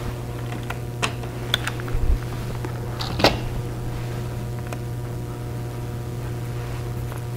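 Scattered light clicks and knocks as the 3D-printed clock's pendulum is stopped by hand and lifted off, then its weight is handled, the loudest knock about three seconds in. A steady electrical hum underlies them.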